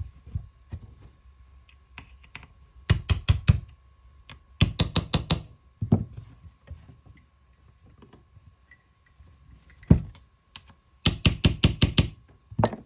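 Metal parts of a Ruger 10/22 rifle being handled during reassembly: three short runs of quick clicking, about eight clicks a second, and a single sharp click about ten seconds in.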